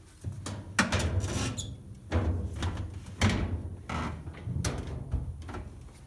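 Dryer's sheet-metal front panel being pushed and lifted into place against the cabinet: a run of clunks and rattles, with several sharp knocks about a second apart.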